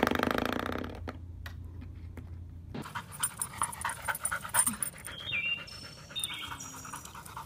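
Spring door stop flicked by a puppy's paw, twanging with a buzzing boing that dies away over about a second. After a cut, a dog panting, with a few short high chirps.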